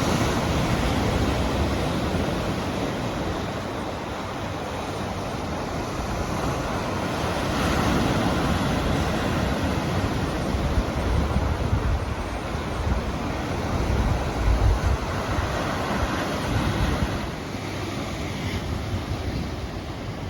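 Ocean surf washing ashore in a steady rush that swells and eases every several seconds, with gusts of wind rumbling on the microphone, strongest a little past halfway.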